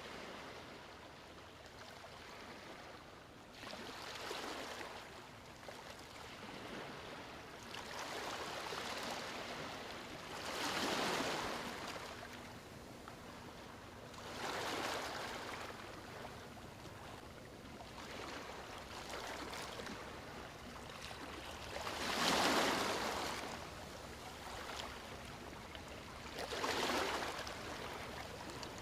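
Steady hiss of water with swells that build and fade every few seconds, like waves washing in.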